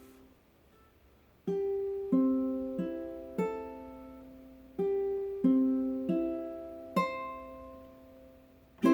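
A plucked stringed instrument playing a slow introduction to a children's song. Two phrases of four single strummed chords each ring out and fade. Faster strumming begins at the very end.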